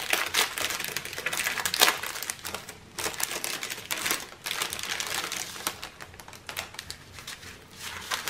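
Thin clear plastic bags of diamond-painting drills crinkling and rustling as they are handled and unfolded, in a run of irregular crackles, the sharpest about two seconds in.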